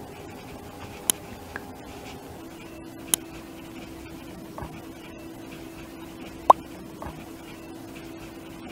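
Quiet room tone with a faint steady hum, broken by three short sharp clicks, the loudest about six and a half seconds in, and a few smaller ticks.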